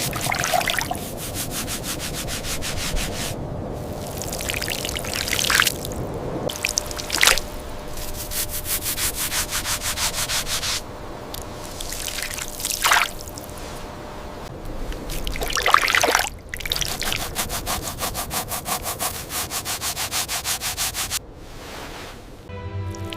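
A brush scrubbing a hard surface in quick back-and-forth strokes, about four a second, in runs of a few seconds, with single longer sweeping scrapes between the runs.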